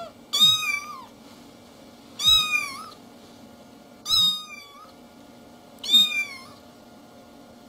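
An orange-and-white cat meowing four times, short arched meows about two seconds apart.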